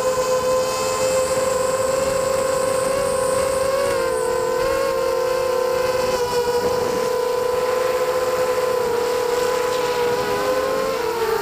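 FPV quadcopter's brushless motors and propellers whining in flight, several close tones from the separate motors. The pitch shifts with throttle, dipping briefly about four seconds in and changing again near the end.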